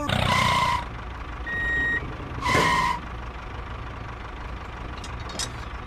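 Vehicle reversing beeper sounding twice, about two seconds apart, over a steady engine running.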